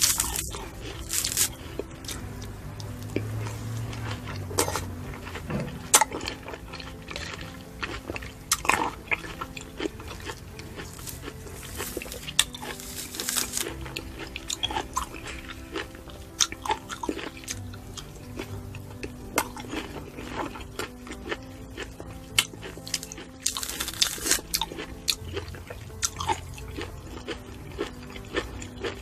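Biting and chewing of peeled citrus segments, with many short crunches and mouth clicks, over steady background music.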